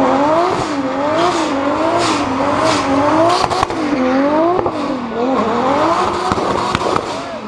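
Turbocharged 600 hp 2JZ inline-six held at high revs during donuts, its pitch swinging up and down over and over, with tyres screeching in repeated waves and a few sharp cracks from the exhaust.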